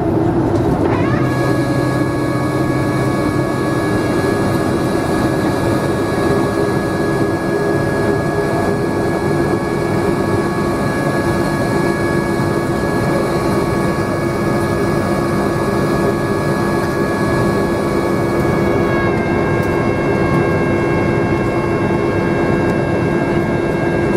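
Jet engine whine of a Boeing 737-300's CFM56 engines heard inside the cabin, over a steady rush and hum. The whine rises about a second in, holds steady, and falls away at the very end.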